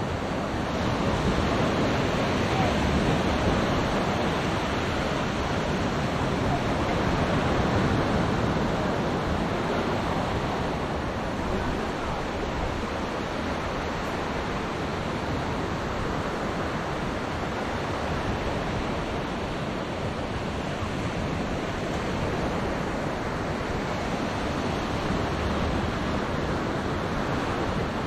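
Small waves breaking and washing up a sandy shore, a steady rush of surf with wind on the microphone. It swells louder twice in the first ten seconds or so.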